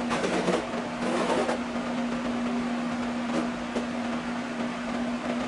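Wet/dry shop vacuum motor running with a steady hum. Over it, wet carpet being pulled up off the floor gives short rustling scrapes in the first second and a half and again near the four-second mark.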